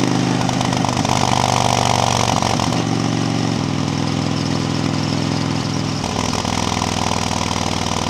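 Harley-Davidson touring motorcycle's V-twin engine running at highway cruising speed, its note shifting twice, with wind rush over the rider.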